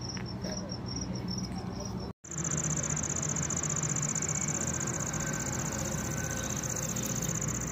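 Crickets chirping at night. A rapid, regular high chirp sounds for about two seconds, and then, after a brief dropout, a steady unbroken high trill continues over a low hum.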